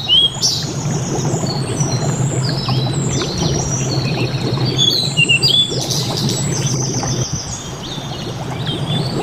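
Many birds chirping and whistling in overlapping short calls over the steady rush of a flowing river.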